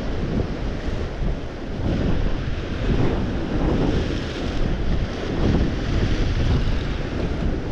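Strong gusting wind buffeting the microphone, with sea surf breaking underneath.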